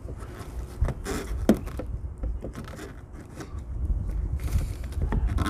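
A metal pick scraping and clicking as it is worked between a rubber coolant hose and the Prius inverter pump's fitting to break the hose loose: a cluster of short scrapes about a second in and a longer scraping stretch near the end.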